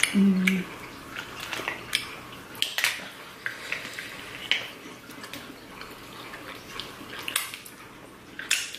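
Eating sounds from a meal of crab legs and shrimp alfredo: scattered, irregular sharp clicks and cracks, with wet smacks and plate and cutlery clinks.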